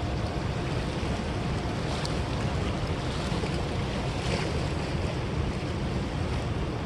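Steady wind rushing and buffeting the microphone, a constant even roar with no let-up.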